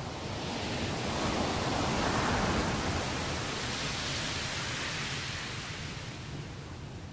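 Ocean surf: a single wave swelling in, loudest about two seconds in, then hissing away as it washes back.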